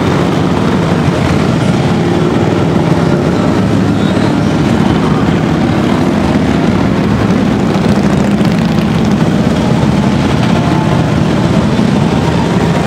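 A long procession of motorcycles, mostly Harley-Davidson V-twin touring bikes, riding past at low speed in an unbroken stream: a loud, steady, deep engine rumble from many bikes at once.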